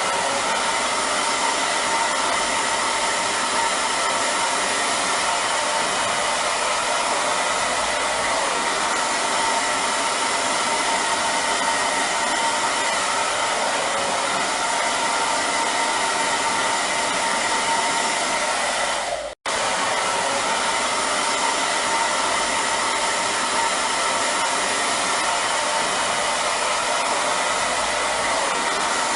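Hair dryer running steadily: a constant blowing hiss with a faint whine in it. The sound drops out for a split second about two-thirds of the way through, then carries on unchanged.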